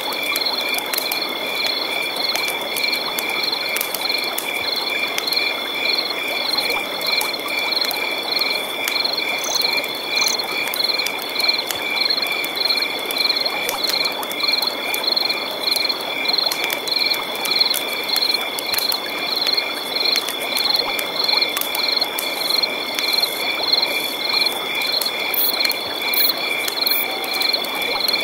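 Night chorus of frogs and insects: a steady high insect trill with rhythmic calls repeating about twice a second, over an even rush of river water.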